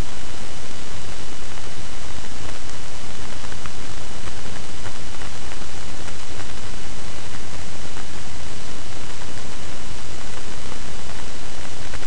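Loud steady hiss from a poorly set-up microphone, an even static-like rush with a low hum underneath.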